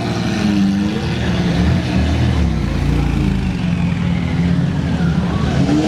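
Sports car engines revving as the cars drive off, their pitch rising and falling with throttle blips, several engines overlapping. A deeper engine rumble swells about halfway through.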